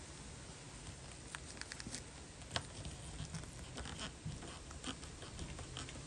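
Faint scattered clicks and light scraping of small hand tools working on a steel watch case, over a steady low hum and hiss. One click about two and a half seconds in stands out a little.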